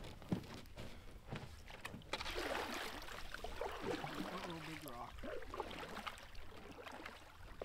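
A loaded canoe being launched from a stony shore: a few sharp knocks against the hull, then from about two seconds in a steady scraping, splashing rush of water as the hull slides off into the lake and the paddles start to stroke.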